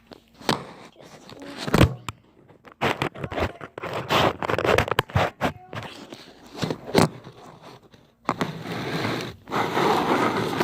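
Close handling noise: a run of clicks, knocks and scrapes, then steady rustling and scraping from about eight seconds in.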